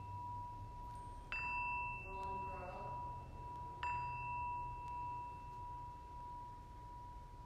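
A bell struck twice, about two and a half seconds apart, rung as names are lifted up in prayer. Each strike rings on in a long, clear, pure tone that carries to the end.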